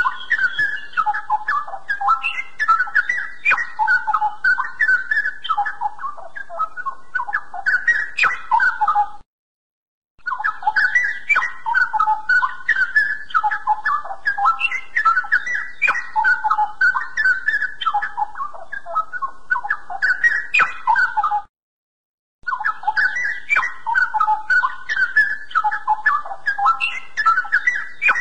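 Straw-headed bulbul (cucak rowo) singing a continuous, rapid run of rich warbled whistles. It cuts off abruptly twice for about a second of silence, as where a recording is looped.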